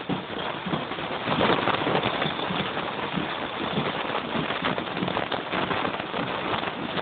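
Footsteps of a group walking on a dirt path, irregular soft steps under a steady rushing noise that grows a little louder about a second and a half in.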